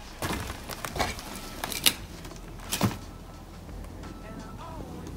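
Footsteps on broken wooden boards and roof debris: a handful of sharp cracks and knocks in the first three seconds, the loudest about two seconds in, then quieter.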